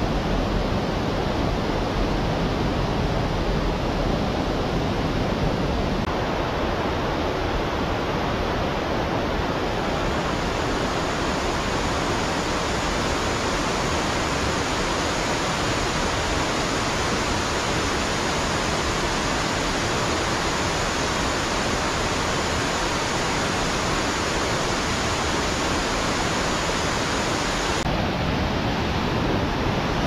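Mountain stream rushing over rocks, a steady loud wash of water.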